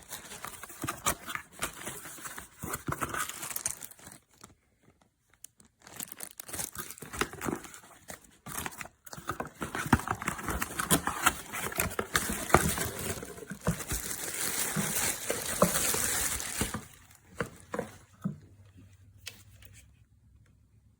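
Crinkling and rustling handling noise with many small clicks, stopping after about 17 seconds, leaving only a faint low hum.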